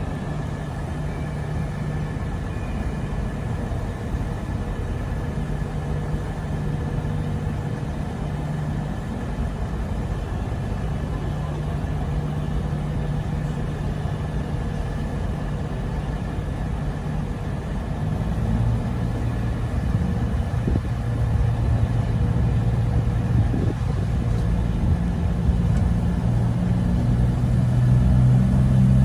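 Class 221 Super Voyager diesel-electric train's underfloor Cummins diesel engines idling steadily, then powering up and getting louder about two-thirds of the way through as the train pulls away.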